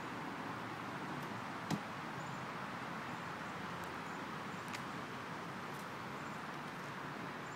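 Steady outdoor background noise, with one sharp click a little under two seconds in and a fainter click near five seconds.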